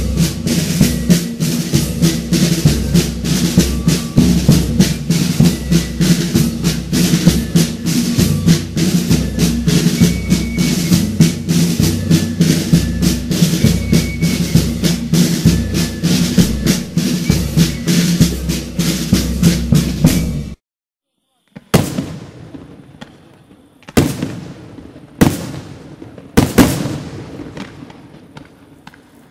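Drum-heavy music with rapid, rolling percussion, which cuts off abruptly about twenty seconds in. Then come fireworks: a handful of sharp bangs one to two seconds apart, each trailing off in an echo.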